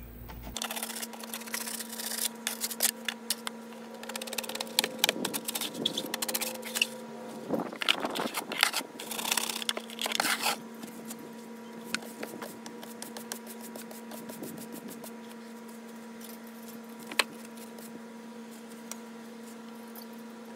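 Shovel and stiff brush scraping and sweeping dirt off the pool-equipment pad in quick repeated strokes for about ten seconds, then only a few light scrapes and taps, over a steady hum.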